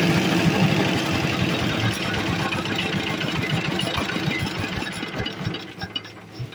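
Corn cracking machine running, a dense mechanical clatter that dies down over the last couple of seconds to a few scattered rattles.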